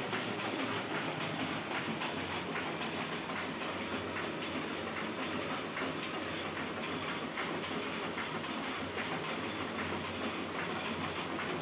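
Small sheet-fed offset printing press running: a steady mechanical clatter with many fine, rapid clicks over a low hum.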